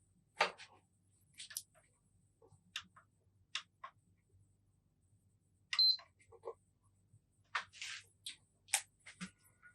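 Scattered light clicks and taps from hands handling a PlayStation 4 Pro and its cables while it is being tested, with one short high beep a little before six seconds in.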